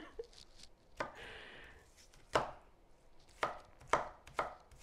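Large kitchen knife chopping an onion on a wooden cutting board: about six sharp, irregularly spaced knocks of the blade striking the board, with a short crunch of the blade going through the onion after the first one.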